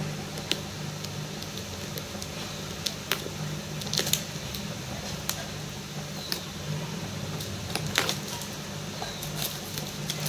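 Scattered light clicks and taps of fingers handling a cardboard earbud retail box, over a steady low hum.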